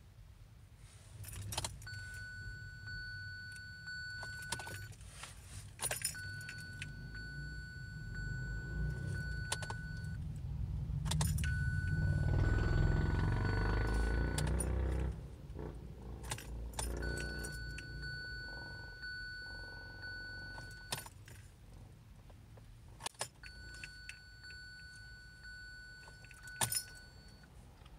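Keys clicking and jangling in the ignition of a 2017 Kia Sorento that will not start. A steady electronic beep lasting about three seconds sounds five times, with clicks between the beeps. A low rumble swells and fades in the middle.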